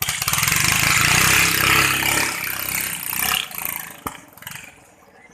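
Katinting longtail boat engine with a stock motor, running hard at high revs; the sound is loud at first and fades away after about three seconds. A single sharp knock about four seconds in.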